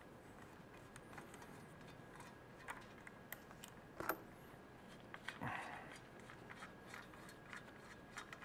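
Quiet room tone with faint scattered clicks and taps from gloved hands handling a port gasket on a stock cast-iron Pontiac 6X cylinder head. A sharper click comes about four seconds in, and a short scrape about a second later.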